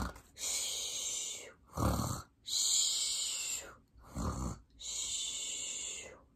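A woman voicing cartoon snores, three times over. Each is a short, low snorting "honk" followed by a long hissing "shooo" breathed out.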